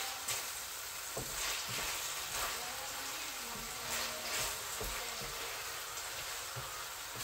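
Kpomo (cow skin) in tomato-and-pepper sauce sizzling steadily in a frying pan while a wooden spatula stirs it, with soft scrapes and taps of the spatula against the pan now and then.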